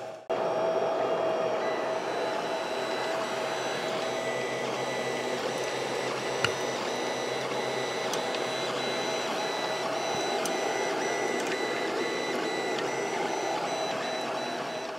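Anet 3D printer running as its print head moves over the bed: a steady mechanical hum with a high whine from the motors and fans, and a few faint clicks.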